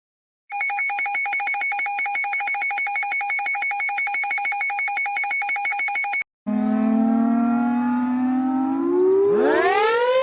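Emergency alert alarm tones. An electronic alarm sounds a rapid pulsing beep of two tones, one low and one high, for about six seconds and cuts off suddenly. After a brief gap a siren starts at a low steady pitch and winds up, climbing in pitch, with a second, steeper rising tone joining near the end.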